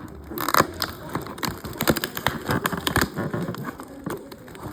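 Plastic and cardboard packaging being handled: a quick run of crackling, crinkling and sharp clicks, loudest about half a second in and easing off after about three seconds.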